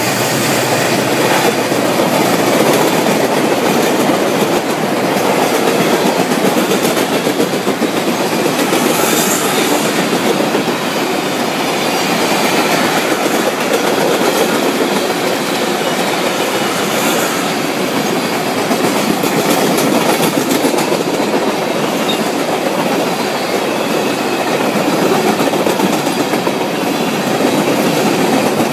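CN freight train's cars rolling past at speed: a steady, loud rumble of steel wheels on rail with clickety-clack from the wheels over the rail joints.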